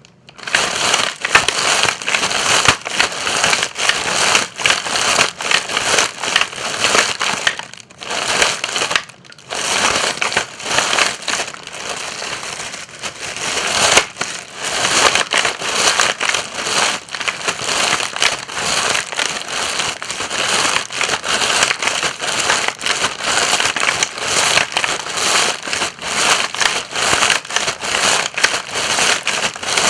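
Footsteps crunching through dry leaves, a dense run of crackling and crushing with two short pauses about a quarter of the way in.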